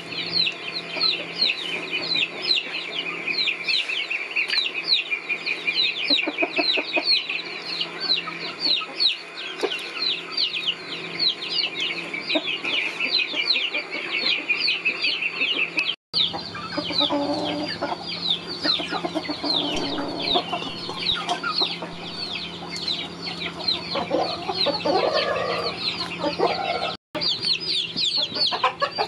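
A brood of chicks peeping continuously, a dense stream of short, high, falling cheeps, several a second. The sound cuts out briefly twice.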